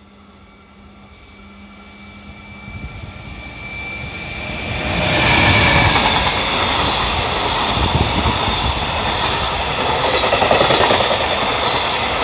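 EF210 electric locomotive hauling a container freight train through a station: the noise grows as it approaches, then about five seconds in the loud rumble and rattle of steel wheels and container wagons passing close by, holding steady as the wagons stream past.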